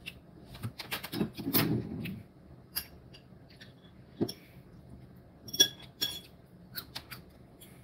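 Scattered light clicks, taps and clinks of small objects being handled close to the microphone, with a short rustling burst between one and two seconds in.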